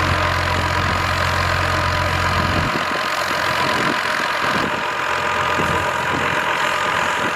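An engine running steadily, with a low hum underneath that stops about two and a half seconds in.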